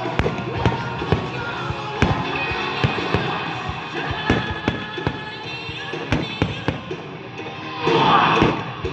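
Aerial fireworks going off in a rapid string of sharp bangs, about one or two a second, over amplified rock music, with a louder, denser burst near the end.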